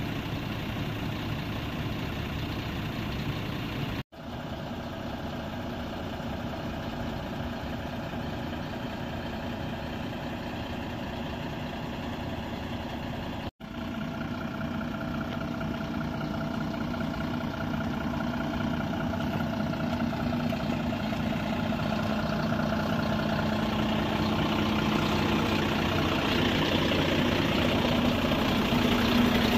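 Diesel engine of a Hitachi EX5500-5 mining excavator running steadily. It grows gradually louder over the second half, and the sound cuts out for an instant twice.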